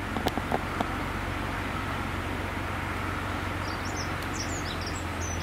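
Small diesel shunting locomotive idling with a steady low hum, with a few sharp knocks in the first second. Birds chirp near the end.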